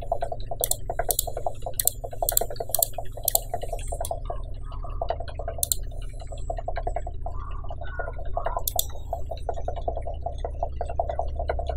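Steady electrical hum of a home recording setup, with about eight sharp clicks from working a computer, most of them in the first few seconds and a couple more later on.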